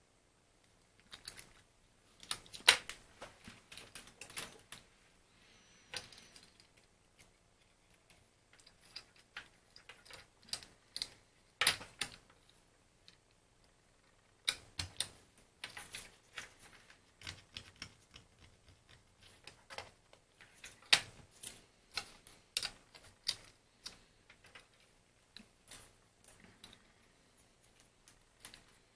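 Irregular sharp clicks and light taps of small hard plastic parts being handled, as the opened B&O BeoCom 2 handset is worked on, with quiet gaps in between.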